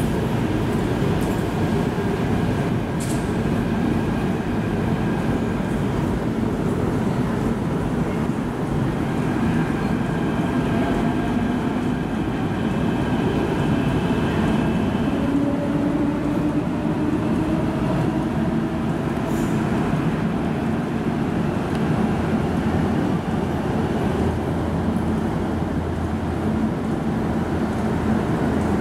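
MTR metro train running through an underground station without stopping, heard from the platform behind the screen doors: steady rumbling wheel and running noise. A high whine comes and goes about halfway through, followed by a lower gliding tone.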